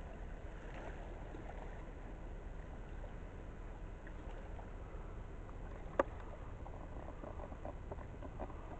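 Steady low rumble of a distant lake freighter's engines as it passes on the river, with one sharp click about six seconds in.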